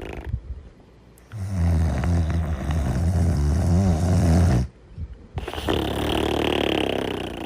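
A sleeper snoring: one long low snore of about three seconds, then a breathy, hissing out-breath after a short pause.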